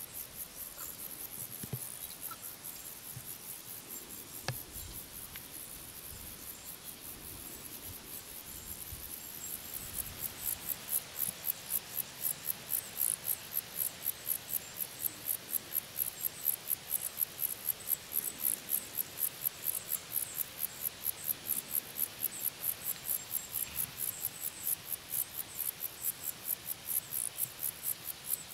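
An insect chirping in a fast, even rhythm of high-pitched pulses, about three a second, getting louder about ten seconds in.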